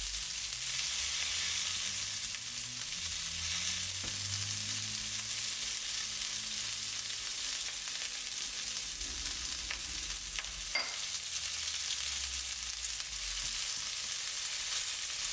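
Minced garlic and ginger sizzling in hot olive oil in a skillet, a steady high hiss, while a spatula stirs them around the pan. A couple of faint clicks of the spatula come about two-thirds through.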